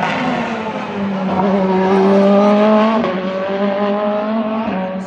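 Race car engine accelerating hard, its pitch climbing and then dropping at two upshifts, about three seconds in and near the end. It is loudest in the middle as the car goes by.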